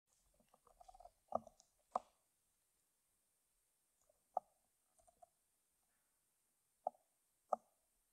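Footsteps on a bare, gritty concrete floor: a handful of sharp steps, unevenly spaced with pauses, and light scuffing of grit between them.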